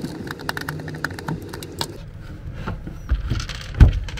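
Clicks and rattles of a plastic control-unit housing being handled as its cover is taken off, then a heavy thump near the end, the loudest sound.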